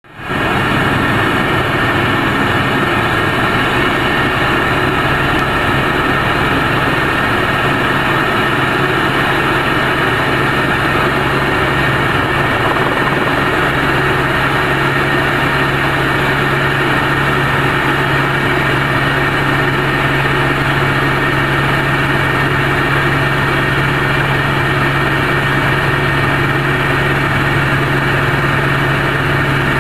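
Helicopter engine and rotor heard from inside the cabin during takeoff: a loud, steady low drone with a higher whine over it.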